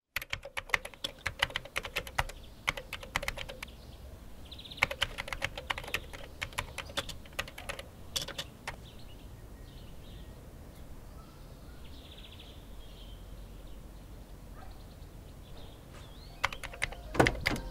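Rapid clicking like keyboard typing, in two runs over the first nine seconds, then faint chirps, and another short burst of clicks near the end.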